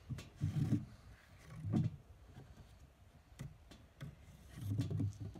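Wooden parts of a homemade drop-door animal trap knocking and rubbing as the trap is reset: the wooden lever arm is handled and the plywood door is raised on its string. Three dull bumps, about half a second in, near two seconds and near five seconds, with a few light clicks between.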